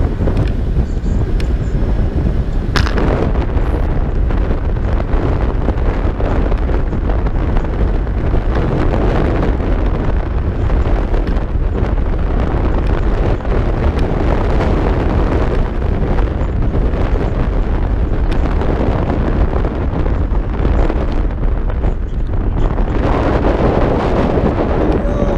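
Heavy wind buffeting the microphone while riding a Kaabo Mantis Pro electric scooter at speed, with a sharp knock about three seconds in.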